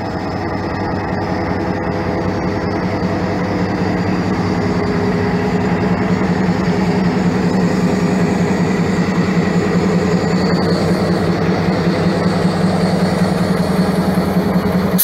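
Diesel locomotive standing and idling: a steady engine drone with a strong low hum that grows a little louder partway through.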